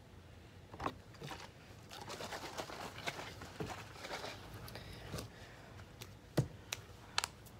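Handling noise from a phone camera being picked up, moved and set back down: rustling, with a few sharp knocks and taps. The sharpest taps come in a quick cluster near the end.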